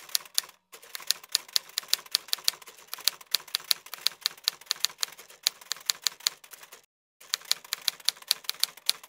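Typewriter keystroke sound effect: a rapid, even run of key clicks, about five or six a second, with two brief pauses, one just under a second in and one about seven seconds in.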